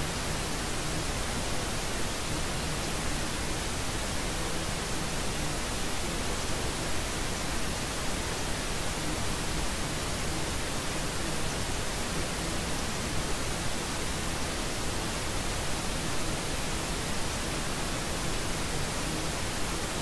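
Steady white noise: an even, unchanging hiss with no beat, tone or break.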